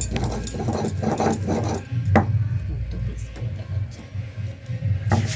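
Fresh ginger being ground by hand: quick, rhythmic rubbing and knocking strokes, several a second, with a sharper knock a little past two seconds in.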